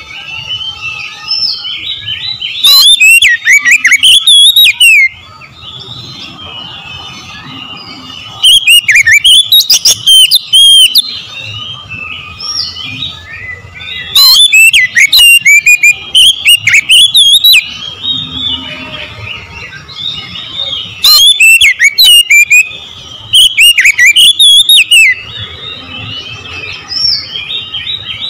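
Oriental magpie-robin (kacer) singing a loud, varied whistled song in bursts of a few seconds, six phrases in all. Quieter chirping continues between the phrases.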